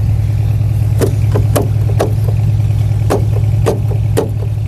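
An already-started vehicle engine idles steadily, with about eight sharp clicks or knocks over it.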